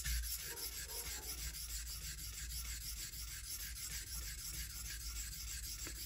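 Steel blade of a Victorinox Huntsman pocket knife scraping back and forth across the 1000-grit face of a combination whetstone in quick, even strokes. The coarse grit is grinding the edge down far enough to raise a burr.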